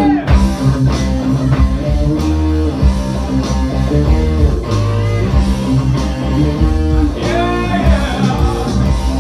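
Live rock band playing: electric guitar over bass guitar and a steady drum beat.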